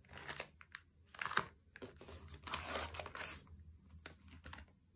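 Plastic-wrapped items and cardboard packaging crinkling and rustling as they are lifted out of a cardboard box, in several short bursts.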